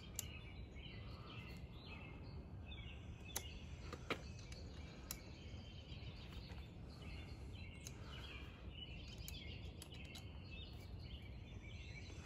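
Faint outdoor background with birds chirping now and then, and a few small sharp clicks from an Allen wrench as the hand-guard bolts on a motorcycle handlebar are tightened.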